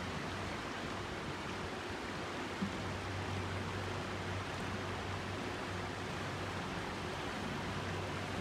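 A small boat moving along a calm canal: a steady rushing noise with a low, even hum underneath, and one brief click about two and a half seconds in.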